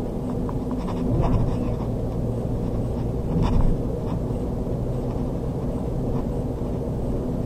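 Steady rumble of a car driving at road speed, engine and tyre noise heard from inside the cabin.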